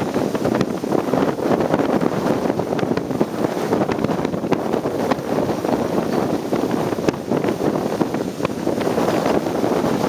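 Typhoon storm wind blowing hard across the microphone in buffeting gusts, over the rush of a rough sea with waves breaking.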